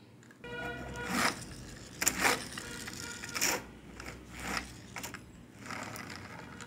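Small plastic toy jeep being handled and turned over, giving scattered light clicks and knocks about once a second.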